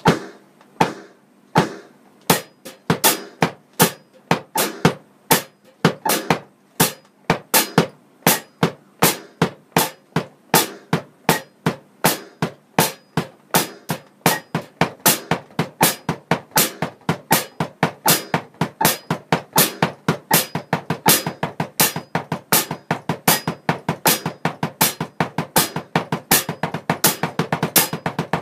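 Electronic drum kit practice: double strokes on the bass-drum pedal, an even run of sharp strikes that begins sparse, then speeds up from about three strokes a second to about five near the end.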